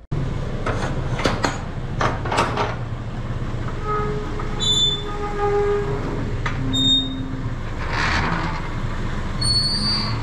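A sliding gate being pushed open along its track: a few clanks in the first couple of seconds, then rolling metal wheels with several short squeals, over a steady low hum.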